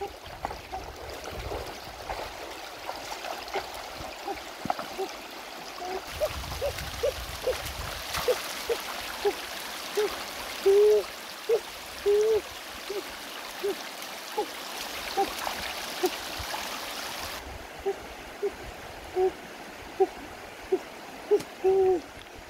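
An animal's short hooting calls, repeated about twice a second and sometimes doubled, over the steady rush of a shallow stony river.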